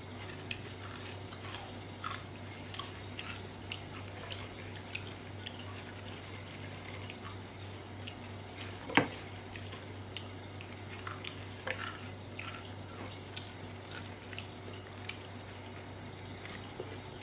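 Someone chewing crisp fried banana-stem chips close to the microphone: scattered small crunches and mouth clicks, with one sharper crack about nine seconds in, over a steady low hum.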